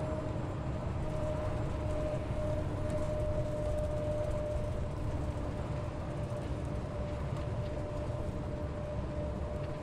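Inside a highway bus cruising on an expressway: a steady low rumble from the engine and road, with a steady whine held over it.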